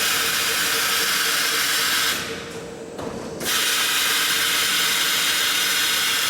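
A lathe-type roll cutting machine cutting a trial slice, a loud steady hiss. It breaks off for about a second a little over two seconds in, then resumes.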